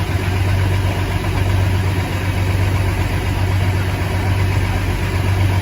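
Truck engine idling steadily, a deep, even hum.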